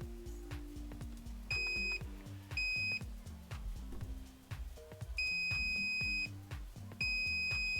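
A digital multimeter's continuity beeper sounds in broken spells: two short beeps, then a longer one, then another that starts near the end and keeps going, as the probes sit across a coil on the soundbar's amplifier board. The beep cutting in and out is the sign of an intermittent connection, which the repairer puts down to looseness inside the coil. Background music with low notes plays underneath.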